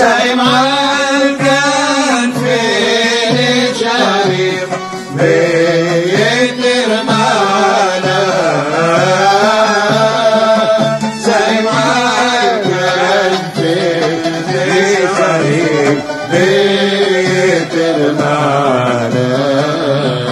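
A Syrian-Jewish pizmon sung in Hebrew: a solo voice carries a winding, ornamented Middle Eastern melody over instrumental accompaniment with a steady low beat about twice a second.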